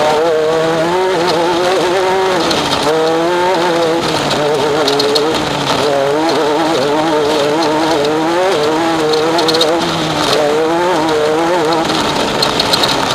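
Off-road race vehicle's engine under hard driving, its pitch rising and falling over and over as the throttle is worked, over a constant hiss of road and wind noise.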